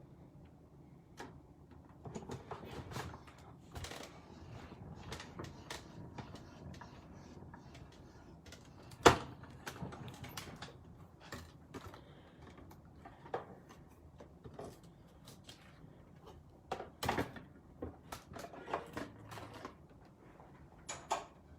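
Paper-crafting handling sounds: paper rustling and light taps and clicks of tools and dies on a work desk, scattered and irregular, with one sharp click about nine seconds in.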